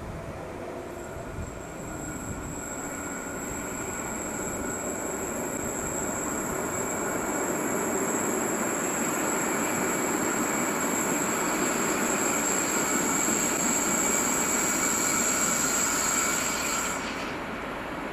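A train running past, growing louder as it comes, with a steady high-pitched tone over its rumble that stops abruptly about seventeen seconds in.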